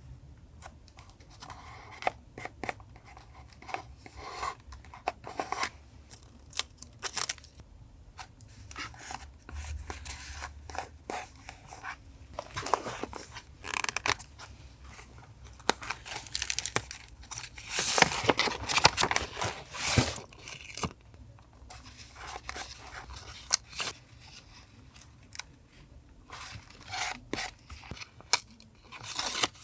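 Paper collage crafting: scissors snipping paper, with paper tearing and rustling, in irregular bursts of crisp clicks and swishes. The busiest, loudest stretch comes about two-thirds of the way through.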